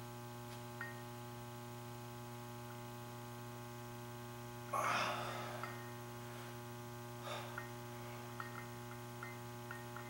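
A man's sharp exhale during dumbbell rows, loudest about five seconds in with a fainter one about two seconds later, over a steady electrical mains hum. A few faint clicks near the end.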